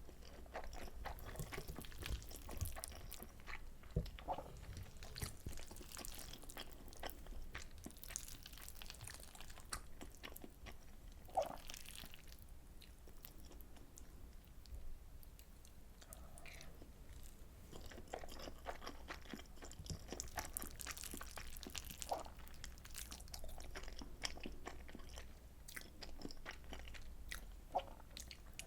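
Close-miked chewing and mouth sounds of someone eating soy sauce butter egg rice: a steady run of small wet clicks, with a few sharper, louder clicks now and then.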